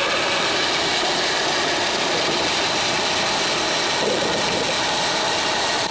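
Metal-cutting saw running steadily as it cuts through thin-walled exhaust stack pipe.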